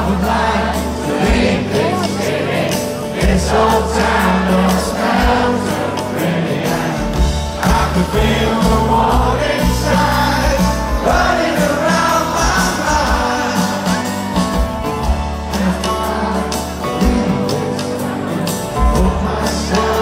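Live rock band playing, with a man singing lead over electric guitar, bass and drums, heard from within the audience.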